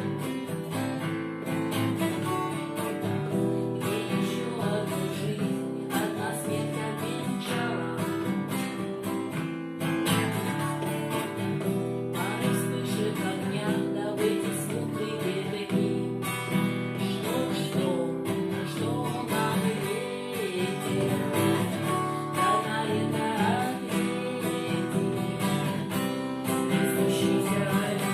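Acoustic guitar strumming chords in a steady, even rhythm.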